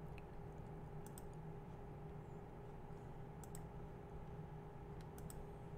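Faint clicking at a computer: a few pairs of short, sharp clicks over a low steady hum.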